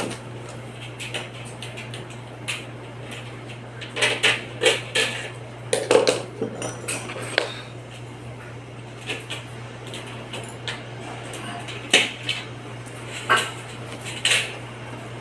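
Scattered light metallic clinks and knocks, in irregular clusters, over a steady low hum.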